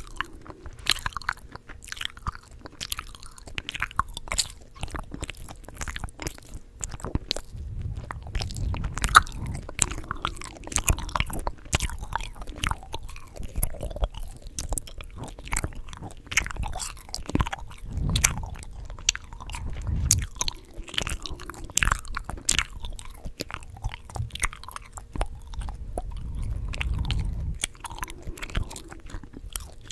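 Chewing gum close to the microphone: a dense, irregular run of wet smacks and sharp clicks, with soft low thumps now and then.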